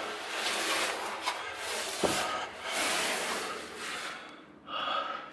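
A climber's heavy breathing mixed with the rubbing of clothes and camera handling, coming in long waves, with a sharp knock about two seconds in.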